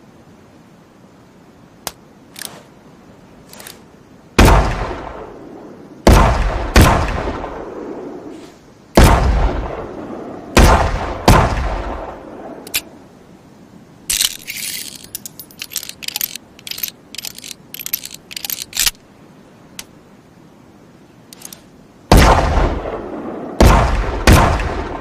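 Revolver gunshot sound effect: a few light clicks, then a string of loud shots, each ringing out, about nine in all. Between the two groups of shots comes a rapid run of small metallic clicks.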